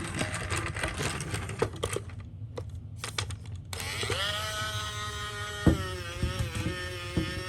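Small plastic toy cars rattling and clicking as they are handled and rolled. About four seconds in, a toy's built-in electronic sound starts: a steady pitched tone, with a few knocks over it.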